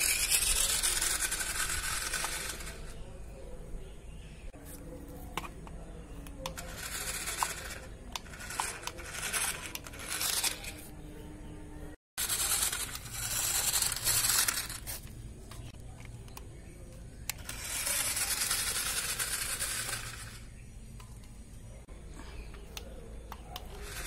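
Homemade RC truck with plastic gears running on rough concrete: its wheels and gear train rattle and grind in several bursts of a few seconds each, coming and going as it drives nearer and away, with a few sharp clicks in the middle.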